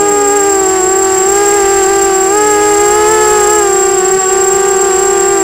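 Brushless motors and propellers of a 250-size FPV racing quadcopter, recorded up close by its onboard camera, whining in a cluster of close pitches that waver up and down with the throttle. A thin steady high tone sits above the motor whine.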